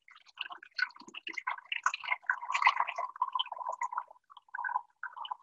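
Just-boiled milk poured slowly from a stainless steel saucepan into a plastic container, an uneven stream that grows sparser near the end.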